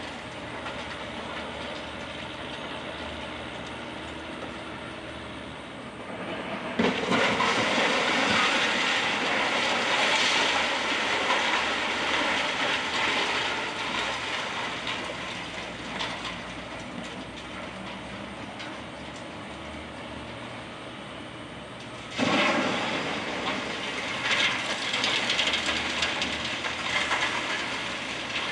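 Wrecking-ball demolition of a brick building: twice, about 7 seconds in and again about 22 seconds in, a sudden crash is followed by several seconds of rubble and debris clattering down. The crashes sit over a steady background rumble.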